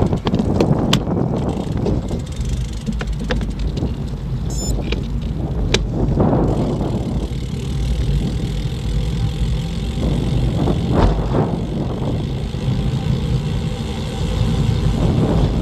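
Wind buffeting the microphone of a bicycle-mounted action camera as the bike coasts without pedalling, a steady low rumble, with scattered sharp clicks in the first half.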